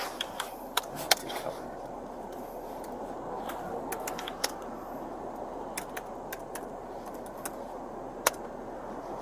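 Steady hum of a patrol car's cabin, with scattered light clicks and ticks; two sharper clicks come about a second in and near the end.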